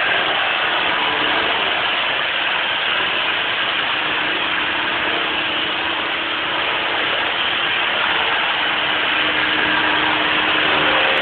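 Handheld electric parquet sanding machine with dust extraction, running steadily: a continuous motor noise with a faint steady hum.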